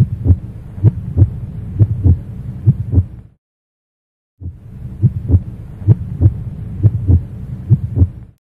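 Heartbeat sound effect: doubled low thumps repeating about once a second over a low hum, in two stretches with a second of silence between them.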